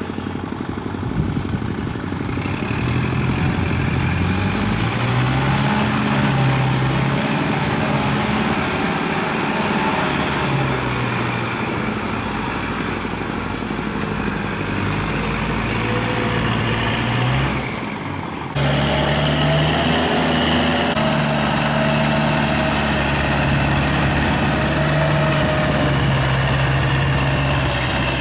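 Kubota tractor's diesel engine running under load as it pulls a rotary tiller through wet paddy mud, its note rising and falling. There is an abrupt jump in level about two-thirds of the way through, after which the engine runs louder and steadier.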